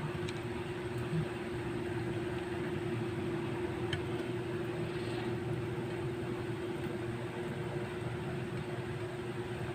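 A steady mechanical hum with one constant low tone, with a faint click about four seconds in.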